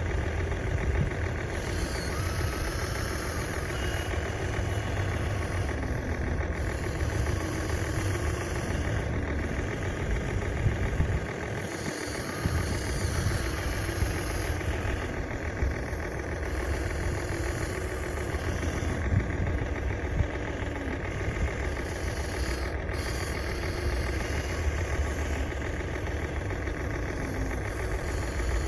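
Steady engine running sound from a radio-controlled model vehicle, heavy and low, dropping away briefly about twelve seconds in before carrying on.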